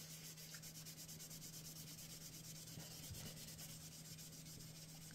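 Faint rubbing as the synthetic tattoo practice skin is wiped clean of excess ink, over a steady low hum.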